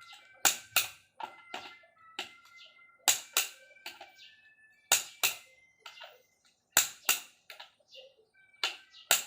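Click-type torque wrench tightening engine main bearing cap bolts, clicking in pairs about every two seconds as it reaches the set torque on each bolt.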